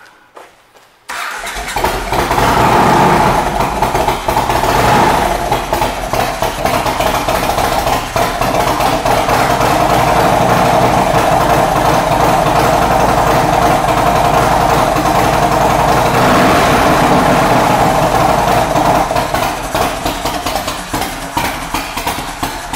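A 2005 Yamaha Road Star Silverado's 1700cc V-twin with aftermarket intake and pipes starts up about a second in, then runs steadily through its exhaust pipes. It sounds rough enough that it likely needs carburetor work.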